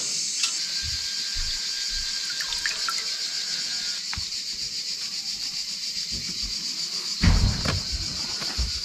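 Steady high-pitched chirring of insects, with soft knocks and, about seven seconds in, a louder burst of rubbing as a cloth is wiped over a wet solar panel.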